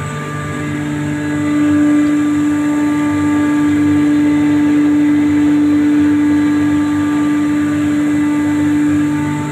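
Machinery of a seed-spice grinding plant running: a steady electric-motor hum with several whining tones. One strong tone comes in about half a second in, grows louder soon after, and eases off near the end.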